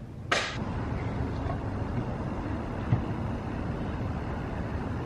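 Steady low rumbling outdoor background noise, with a short sharp click about a third of a second in and a smaller one near the middle.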